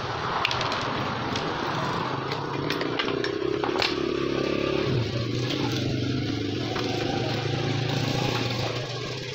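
A small engine running steadily, with a low hum whose pitch steps up about five seconds in. A few sharp clicks sound over it in the first four seconds.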